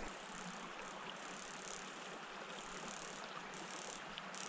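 Small, shallow creek trickling with a low, steady water hiss, and a few faint ticks over it.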